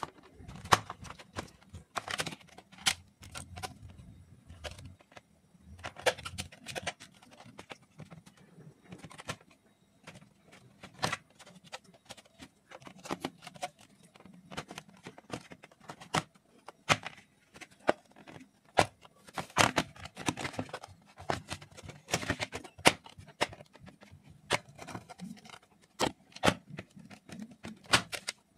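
A small metal blade scraping and cutting the thin plastic knock-out panels of a plastic switch board, with irregular clicks, scrapes and snaps of plastic as the board is handled.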